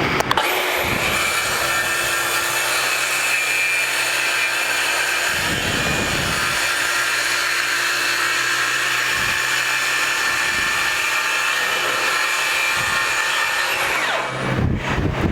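DeWalt FlexVolt 60V brushless track saw starting up, cutting in one steady pass through three stacked sheets of half-inch birch plywood, 1.5 inches in all, then winding down near the end.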